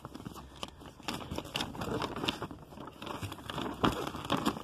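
Glossy paper catalogue pages being handled and turned, crinkling and rustling with many small clicks and one sharper tap near the end.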